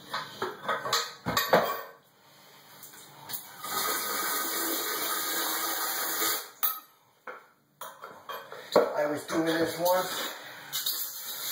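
Hand-operated plastic suction pump emptying a toilet bowl. It clunks and slurps as it is worked, and a steady stream of water splashes out of it for about three seconds in the middle.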